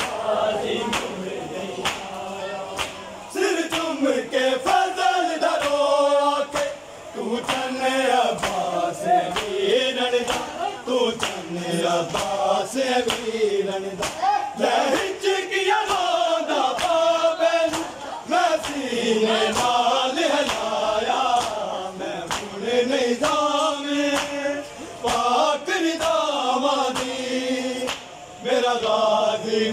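A group of men chanting an Urdu noha, a Muharram lament, in unison, line by line with short breaks between lines. Sharp slaps of chest-beating (matam) sound through the singing.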